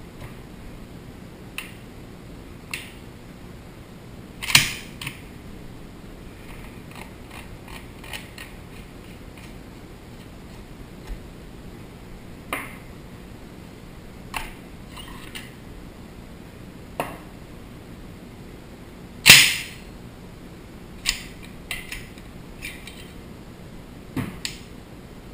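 Armsan A612 semi-automatic shotgun being taken apart by hand: a dozen or so sharp metallic clicks and clacks as parts come loose and are set down on the bench. Two louder clanks with a short ring stand out, about four and a half seconds in and about nineteen seconds in, over a faint steady hiss.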